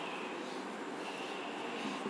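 Whiteboard eraser rubbing back and forth across a whiteboard, a steady scrubbing noise.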